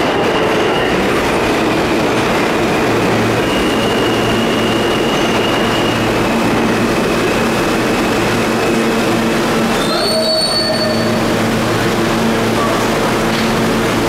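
Steady loud rumble and wheel screech of New York City subway trains in an underground station, with a few short high tones about ten seconds in.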